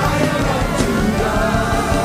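Live worship music: voices singing over a full band with drums and bass, loud and steady.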